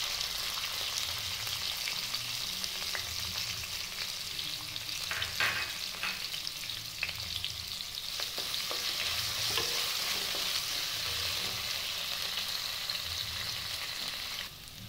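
Chopped onion and green chillies frying in hot oil in a pan, a steady sizzle with a few sharp clicks as they are stirred. The sizzle drops away suddenly near the end.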